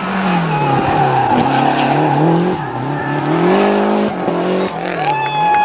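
Group A Lancia Delta rally car's turbocharged 2.0-litre four-cylinder engine being driven hard, its pitch rising and falling with throttle and gear changes. A long, high tyre squeal sets in near the end.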